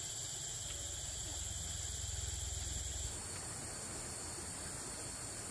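Insects chirring steadily in a high, even drone. The sound shifts about halfway through, and a low rumble underneath drops out at the same point.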